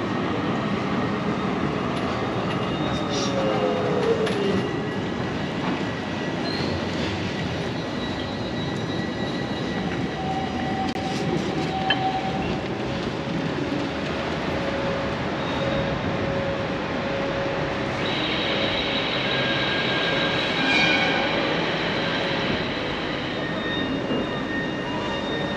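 A rail vehicle, a tram or train, running along its track, with thin high steel-wheel squeal that grows stronger about three quarters of the way through.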